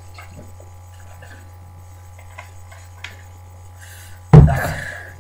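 Low steady electrical hum with a few faint clicks, then about four seconds in a sudden loud splutter from the drinker's throat that fades over nearly a second: a choking, gagging reaction to swallowing the foul mixed shot.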